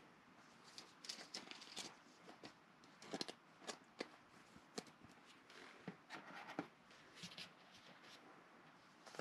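Faint rustling and light clicks of trading cards and a soft plastic penny sleeve being handled as a card is slid into the sleeve.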